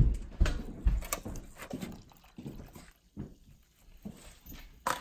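Metal tongs lifting and moving slices of juicy cooked steak on a plate: a string of light clicks and wet squelches, closest together in the first two seconds, with one louder click near the end.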